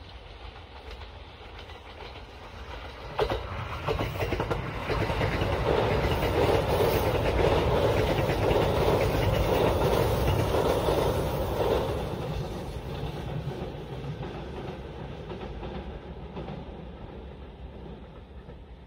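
Train running on rails, with wheels clicking over rail joints; the rumble swells sharply a few seconds in, stays loud through the middle, then slowly fades.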